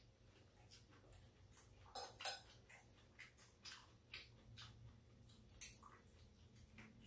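Chopsticks and a metal spoon clicking against bowls and a metal serving tray during a meal, in small scattered clinks. Two louder clinks come about two seconds in, and another just before six seconds in.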